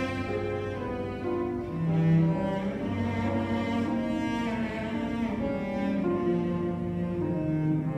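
Cello and piano playing a slow, lyrical classical piece, with the cello's sustained low bowed notes most prominent over the piano accompaniment.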